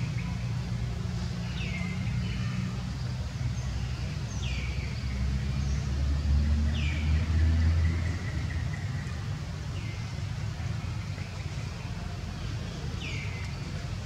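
Steady low mechanical rumble, louder for a few seconds in the middle, with a bird repeating a short falling call every two to three seconds.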